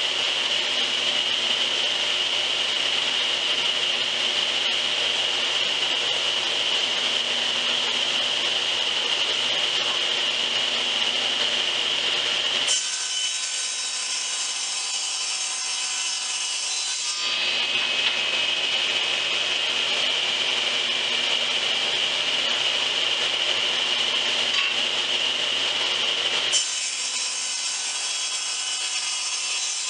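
Table saw running with a steady high whine as a piece of wood is fed over the blade in repeated passes to cut a groove a quarter inch deep. Twice, about 13 seconds in and again near the end, the sound switches abruptly to a thinner, ringing tone without the low rumble.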